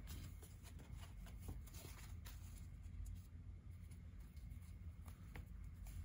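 Hands laying a thin sheet into a keyboard case and smoothing it down: faint rustling with scattered light taps and clicks.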